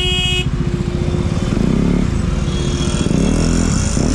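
Motorcycle engine running while under way in traffic, its note rising and falling. A vehicle horn sounds at the start and cuts off within the first half second.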